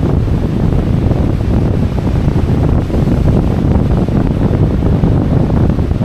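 Wind buffeting the microphone: a loud, gusting low rumble.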